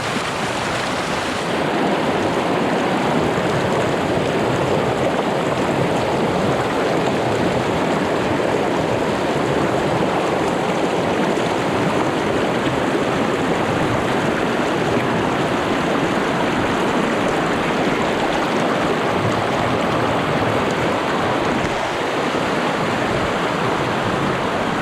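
Loud, steady rush of fast-flowing water, growing a little louder about a second and a half in.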